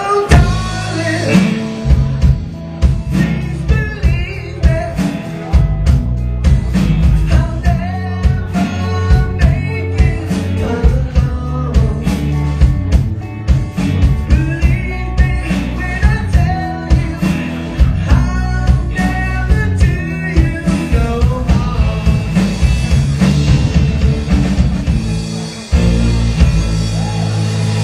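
Live rock band playing, with drums keeping a steady beat, guitar and sung vocals; about 26 seconds in the beat stops and a held chord rings on.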